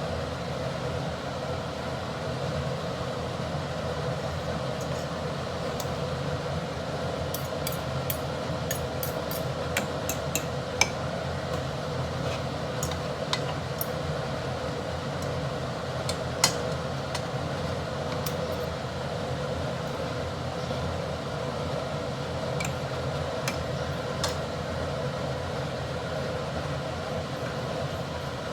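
Light clinks of utensils against dishes and cookware over a steady background hum: a run of clinks about a third of the way in, a sharper one around the middle and a couple more later.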